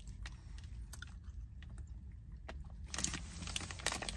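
A person chewing a small sweet, with faint scattered mouth clicks and crunches, over a low steady hum inside a car's cabin.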